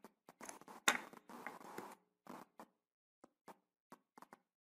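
Faint, irregular clicks and ticks from a computer mouse being used, the loudest about a second in.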